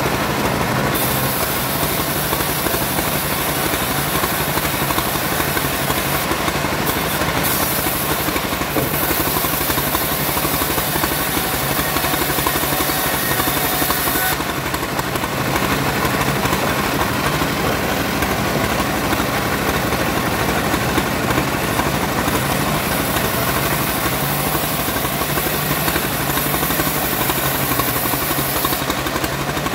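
Homemade bandsaw mill running steadily while sawing sengon timber, with a high hiss that fades for a while past the middle and comes back near the end.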